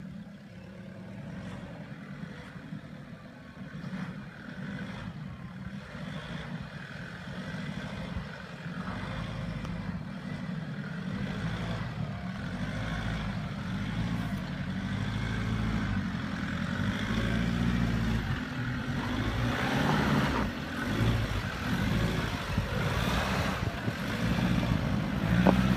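Nissan Patrol's 3.0-litre ZD30 four-cylinder turbo-diesel engine running at low revs as the 4x4 crawls over rock, growing steadily louder as it draws close. Near the end the tyres grind over rock and dirt.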